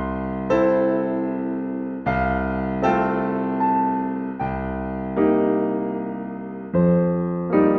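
Background piano music: slow chords, each struck and left to fade before the next, coming in pairs less than a second apart.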